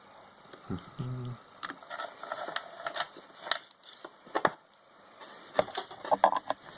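Scattered clicks and taps of hands and tools working on an electric air compressor's motor, taking it apart to get at its power cable, with a short hum of voice about a second in.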